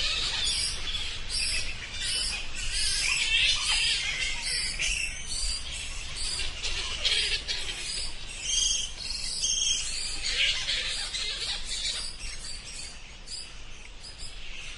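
Bats squeaking and chittering: many short, high-pitched chirps in quick succession, slowly growing quieter toward the end.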